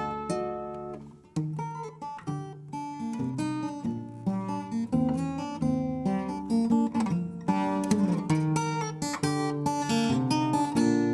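Acoustic guitar played fingerstyle: a steady run of plucked melody notes over an alternating bass line, with a brief drop-off about a second in before the playing picks up again.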